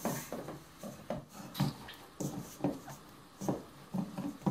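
Hands kneading a flour-and-water dough in a stainless steel bowl: soft, unevenly spaced rubbing and knocking strokes, about two a second, as the dough is pushed and turned against the bowl.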